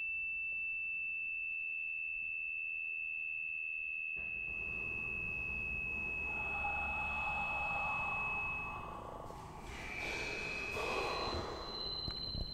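A single high pure tone held steady for about nine seconds before fading. Breathy noise joins it partway through, and shorter high tones at other pitches sound near the end.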